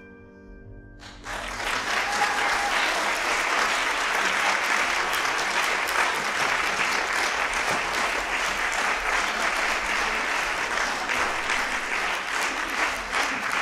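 A grand piano's last chord dying away, then an audience bursting into sustained applause about a second in.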